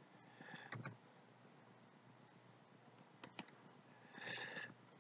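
Faint clicks from working a computer's mouse and keys: one click about three-quarters of a second in and a quick run of three a little after three seconds, with a soft brief hiss just before the end.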